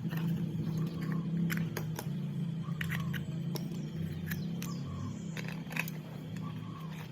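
Electric grinder running with a steady hum and a rough low growl that comes and goes every second or so, a snoring sound. Sharp clicks are scattered through it.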